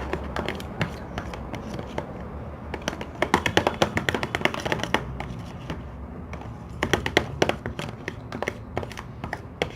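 Hands handling slime-making things on a table: irregular sharp taps and clicks, clustered about three to four seconds in and again around seven seconds.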